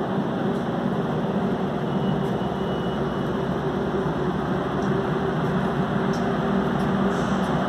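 Steady hum and rushing noise of an underground subway station, a constant low drone with no train arriving or passing.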